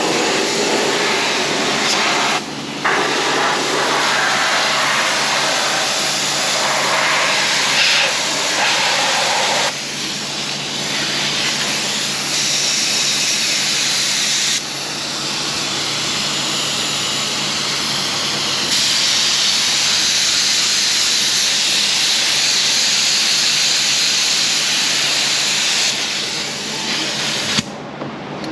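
Long, loud hiss of spray adhesive being sprayed for a headliner, in a few long passes with brief stops about two and a half seconds in and near the end.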